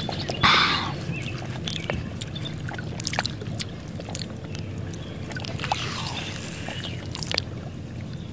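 Water sloshing and splashing, with scattered short clicks and knocks and a louder splash about half a second in.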